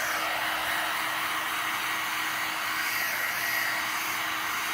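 Hand-held hair dryer blowing steadily, an even rushing hiss with a faint steady hum under it.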